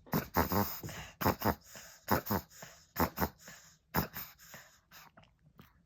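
Pekingese puppy reverse sneezing: a run of harsh, forced inhalations through the nose, mostly in pairs about once a second, dying away near the end. The sound is typical of a flat-faced (brachycephalic) dog's reverse-sneeze fit, a spasm of inspiratory paroxysmal respiration.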